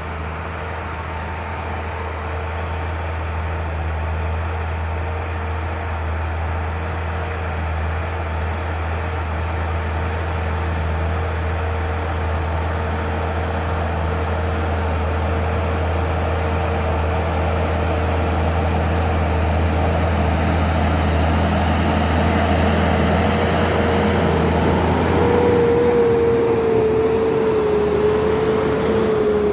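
Tractor engine running steadily, growing louder and wavering slightly in pitch in the last several seconds as it draws nearer.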